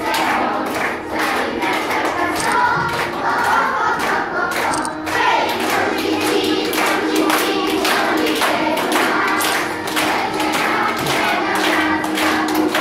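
Children's voices singing as a group along with music, with hand clapping.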